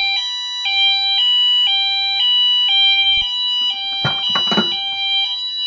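Wheelock MT-24-LSM multitone fire alarm horn sounding its high-low tone, switching between two pitches about twice a second, after a manual pull station has been pulled to put the system into alarm.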